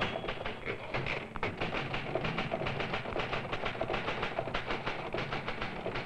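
Rapid, even clicking or tapping, about six clicks a second, steady in pace.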